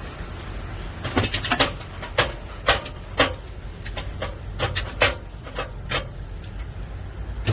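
About a dozen sharp clacks in uneven clusters as the bungeoppang molds on the griddle are worked by hand: opened, shut and turned. A steady low rumble runs underneath.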